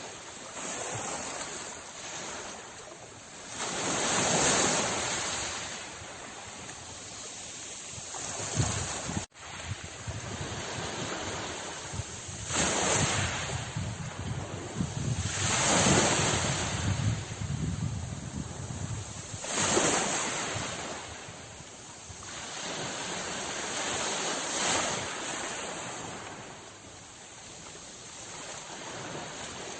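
Sea waves breaking, the surf swelling and fading in surges every three to five seconds. A sudden brief cut in the sound about nine seconds in.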